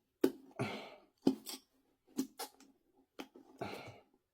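Metal tool clicking and scraping against an e-scooter wheel rim while prying at a tight tyre: a string of sharp clicks with two longer scrapes, one about half a second in and one near the end.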